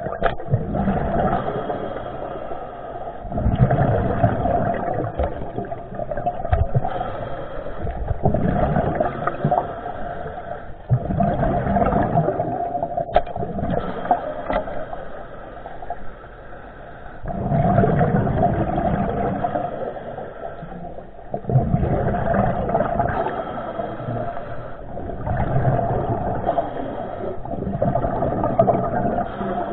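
Muffled underwater noise: water rushing past the camera swells and fades every few seconds over a steady hum, with a few sharp clicks.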